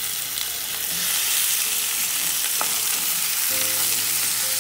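Raw goat meat sizzling as it fries in hot oil with onions in a non-stick pan, stirred with a wooden spatula, giving a steady sizzle with a few light taps and scrapes.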